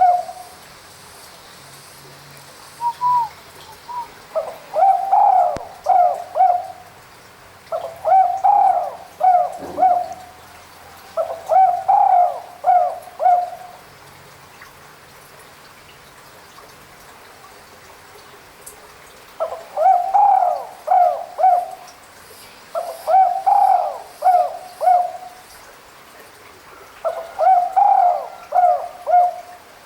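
Spotted dove (tekukur) cooing: six phrases of three or four notes each, coming about every three seconds, with a pause of about six seconds in the middle.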